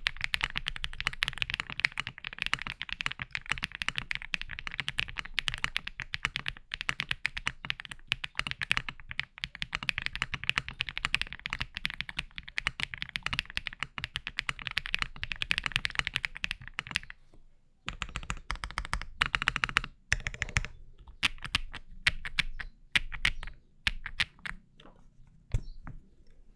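Mr. Suit mechanical keyboard being typed on quickly and continuously for about seventeen seconds. After a brief pause comes a shorter flurry of keystrokes, then scattered single key presses toward the end.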